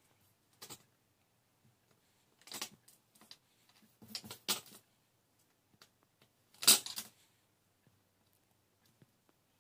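Sheets of coloured paper being handled and cut on a glass tabletop: a few short, separate rustles and snips, the loudest about two-thirds of the way through.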